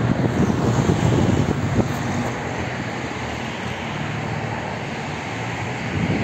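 Wind buffeting the microphone over a steady low rumble of passing traffic. The buffeting is heaviest at the start and again near the end.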